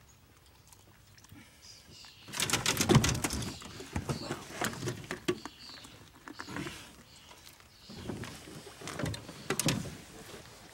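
Clattering and knocking of gear being handled against a metal boat deck, a dense run of knocks about two to three seconds in, then scattered thumps and clicks.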